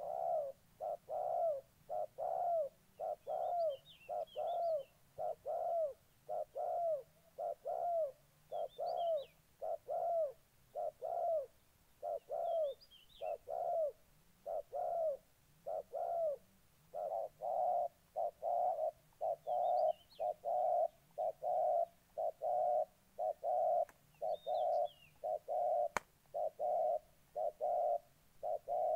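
Spotted doves giving a fast, steady run of short coos, about two a second, in a fight challenge between rival males; the coos grow louder and closer together about halfway through. Faint high chirps from small birds come in every few seconds, and there is a sharp click near the end.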